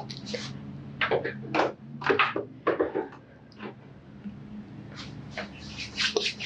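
A series of short clicks, knocks and rustles, irregularly spaced, over a low steady hum.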